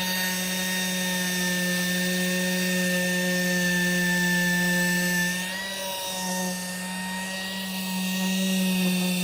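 Pneumatic hand tool running steadily with a whine, its pitch and level dipping briefly about five and a half seconds in before steadying again.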